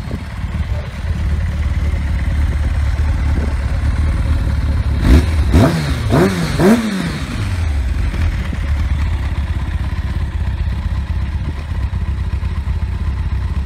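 Kawasaki ZZR-1100 (ZX-11) 1052 cc inline-four idling through an aftermarket silencer, blipped three times in quick succession about five seconds in, each rev rising and falling before it settles back to idle.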